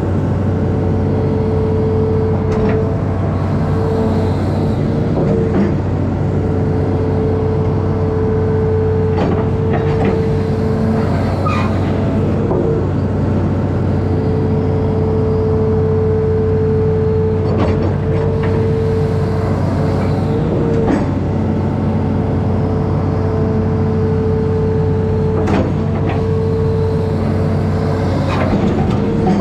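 Amphibious excavator's diesel engine running steadily under load, with a steady whine that drops out for a moment every few seconds and scattered sharp knocks as the machine works.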